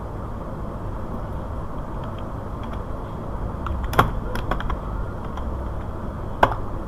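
Computer keyboard keystrokes over a steady low background hum: a few scattered clicks, the loudest about four seconds in, and another sharp one near the end.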